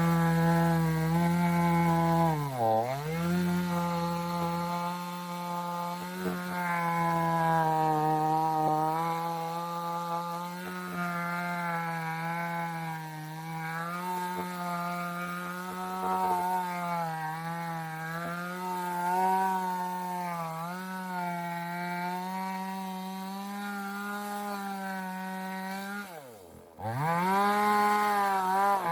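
Two-stroke chainsaw running at high speed and cutting tree wood, its pitch wavering as the chain loads in the cut. Its speed dips sharply and recovers about three seconds in, and near the end it drops almost to idle before revving back up.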